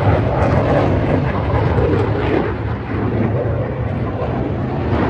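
Steady, loud jet-engine noise of fighter jets flying overhead.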